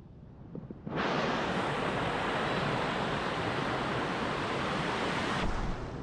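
Loud steady rushing of a rocky mountain stream's water tumbling over stones, starting suddenly about a second in and dropping off near the end.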